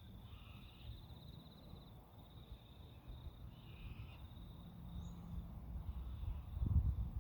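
An insect's steady, high, fine trill, over a low rumble that grows louder with a few knocks near the end.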